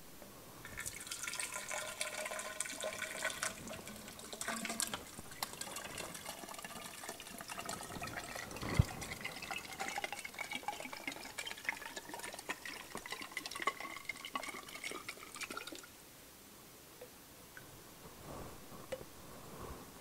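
Water poured from a glass collection bottle into a tall graduated cylinder, splashing steadily with a ringing pitch that rises as the cylinder fills; the pouring stops about sixteen seconds in. A single sharp knock about nine seconds in.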